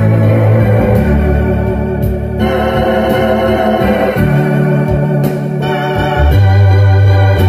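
Electronic keyboard playing a gospel hymn with an organ-like voice: sustained full chords over deep held bass notes, the harmony changing every second or two.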